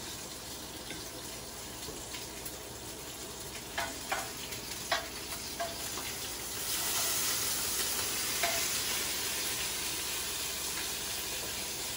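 Pork belly sizzling as it fries: a steady hiss with a few sharp pops, growing louder about halfway through.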